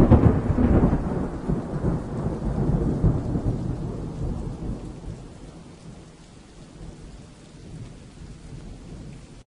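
Thunderclap followed by a long rolling rumble that fades over several seconds, with rain hissing underneath; the sound cuts off abruptly near the end.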